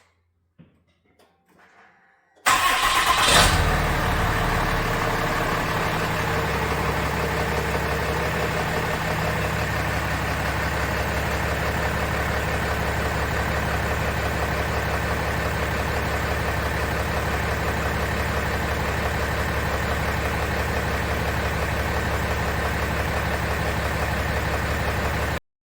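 Pickup truck engine starting about two and a half seconds in, with a brief surge, then settling into a steady idle; the sound cuts off abruptly near the end.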